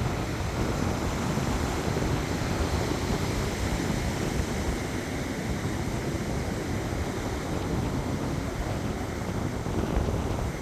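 Wind buffeting the microphone: a steady rushing noise with a fluttering low rumble.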